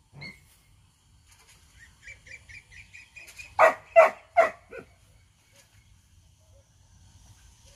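Dog barking four times in quick succession about halfway through, just after a run of short high chirps.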